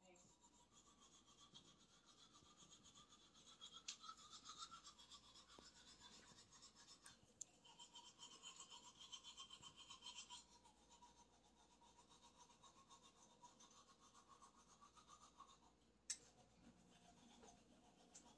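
Manual toothbrush scrubbing teeth in quick back-and-forth strokes, faint and close; a sharp click about sixteen seconds in.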